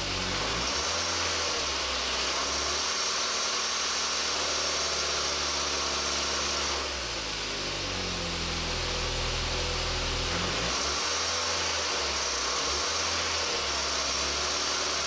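Skoda Octavia's 1.8-litre 20-valve four-cylinder petrol engine (AGN) running at raised revs. It drops back about seven seconds in and is brought up again a few seconds later. It has a noise in the 2000–3000 rpm range that the owner traces to a defective timing belt tensioner.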